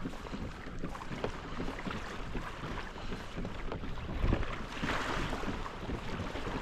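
Wind buffeting the microphone over water lapping against a kayak hull, with scattered small knocks and a low thump about four seconds in.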